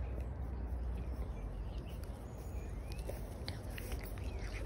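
A low, steady rumble of wind on the phone's microphone, with faint scattered clicks and rustles as a French bulldog puppy runs up through the grass to it.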